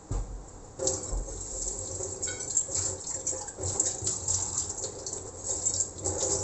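Water pouring in a steady stream, filling a vessel, from about a second in until it stops abruptly near the end. A brief low knock comes at the start.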